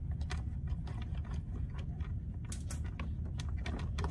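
Scattered faint clicks and taps of hands and a screwdriver at work inside an EGO LM2100SP mower's plastic housing, backing out the two screws that hold the drive circuit board, over a steady low background hum.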